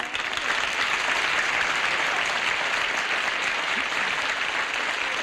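Studio audience applauding, steady and dense.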